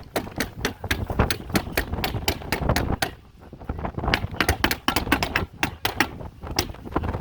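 A roofing fastening tool tacking synthetic underlayment to the roof deck, firing in quick succession at about four or five sharp clicks a second, with a brief pause a little before the middle.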